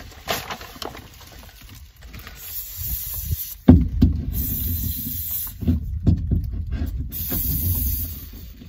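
Aerosol can of gap-sealing foam insulation hissing in three short bursts of about a second as its button is pressed, with nothing coming out: the can is being used without the straw it needs. A low rumble of wind and handling noise runs underneath, with a sharp knock about three and a half seconds in.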